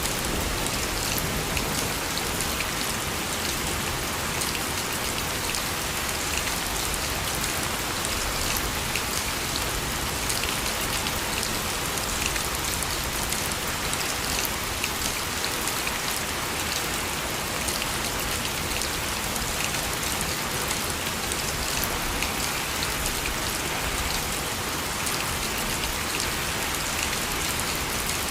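Steady rain falling, with close, crisp drips and patters of drops on surfaces over an even wash.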